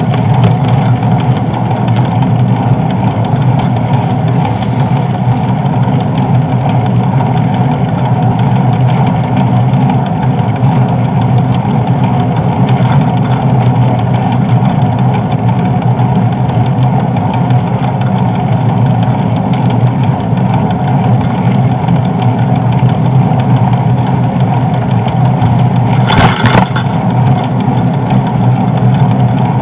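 Steady rumble of wind and road vibration on a bicycle-mounted camera while riding, with one short clatter near the end.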